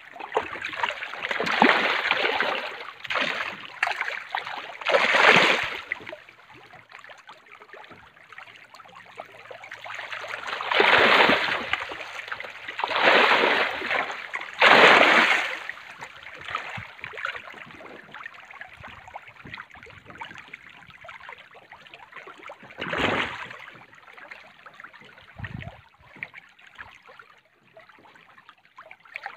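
Fish splashing and churning at the water surface in a farm cage, in repeated surges of a second or two, with quieter lapping and trickling water between them.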